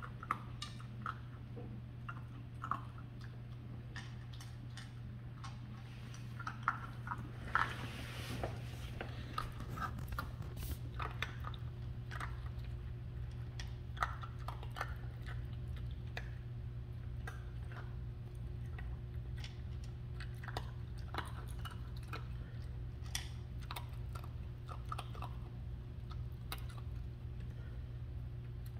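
A puppy chewing dry kibble out of its bowl while lying down: irregular crunching and clicking as it bites and chews the pieces, with a steady low hum underneath.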